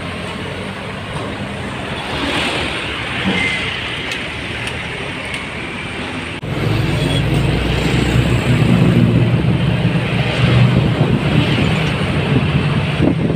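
Heavy diesel trucks and road traffic passing. About halfway through, the sound changes abruptly to a louder, steady low diesel engine drone from an approaching MAN truck.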